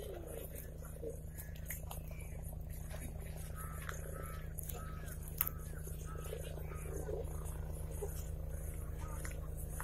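Helicopter heard from a distance: a low, steady drone with a fast, even chop from the rotor. A single sharp click comes about five and a half seconds in.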